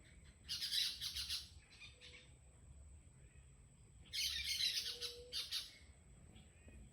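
A bird gives two harsh, raspy squawking calls, each about a second or more long and about three seconds apart, over a faint steady high-pitched whine.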